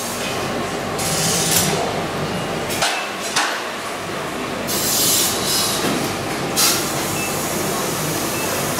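Factory-floor noise from a golf club assembly line: a steady machine hum with stretches of hiss and a few sharp metallic knocks, the loudest near the middle and about two-thirds of the way through.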